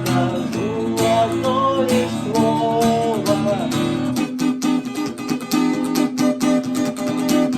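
Acoustic guitar strummed in a steady rhythm, with a sliding melody line over it for about the first three seconds. The low bass drops away about four seconds in.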